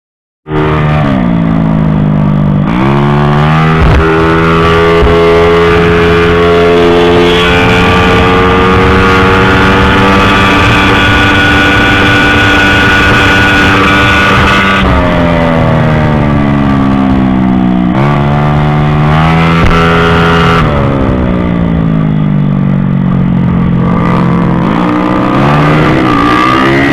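Honda Beat scooter's small single-cylinder engine, heard from onboard, running at high revs under load. It holds a steady high pitch, then dips and climbs again three times in the second half as the throttle is closed for corners and reopened. The sound cuts in abruptly about half a second in.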